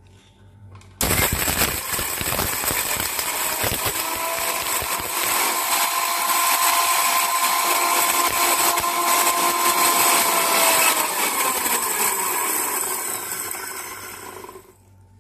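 Indian mixer grinder (mixie) switched on about a second in, with whole dry-roasted spices rattling against the steel blades for the first few seconds. It then runs steadily with a high motor whine as the spices are ground to powder, winding down in pitch near the end and stopping.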